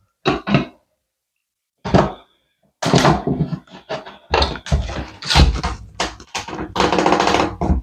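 Wooden baseboard trim being pried off the wall with a flat pry bar: a run of knocks and thunks as the bar is worked behind the board and the wood gives. The knocks are few at first and come thick and fast from about three seconds in.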